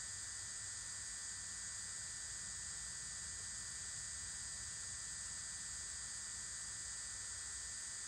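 Steady background hiss with a thin, faint high tone and an uneven low rumble underneath, unchanging throughout.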